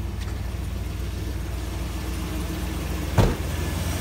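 Freshly swapped V8 in a GM pickup idling steadily on its first run, just started, with good oil pressure. One loud thump about three seconds in.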